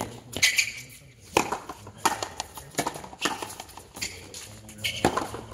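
A frontenis rally: the rubber ball is struck with rackets and smacks off the front wall and floor, giving a run of sharp, irregularly spaced knocks, about seven of them.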